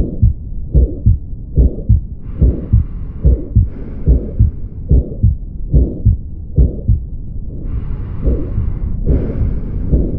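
Heart sounds with the systolic murmur of aortic stenosis, beating regularly at about 75 a minute. A soft hiss rises over the beats twice.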